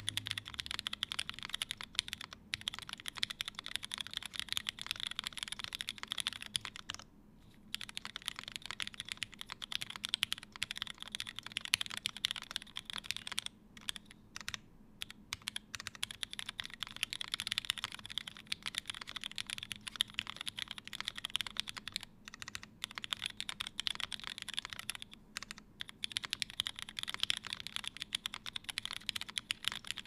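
Steady typing on a Palmetto mechanical keyboard with an aluminium plate, lubed and filmed Cherry MX Hyperglide Black linear switches and GMK Space Cadet keycaps: a dense run of keystrokes with a few short pauses.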